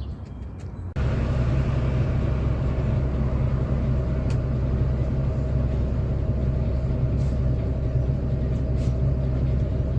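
A steady low engine hum that starts abruptly about a second in and runs on evenly, with a few faint ticks.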